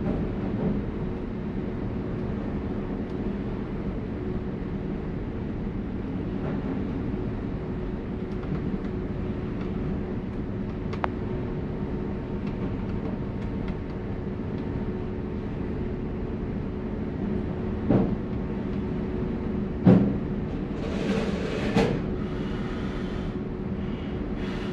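Steady low machine hum holding two tones, with a few sharp knocks and a short hissing rustle near the end.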